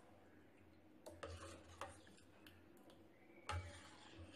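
Metal ladle stirring milk that is curdling into chhena in a steel pan: faint scrapes, with a few light taps of the ladle against the pan and one louder knock near the end.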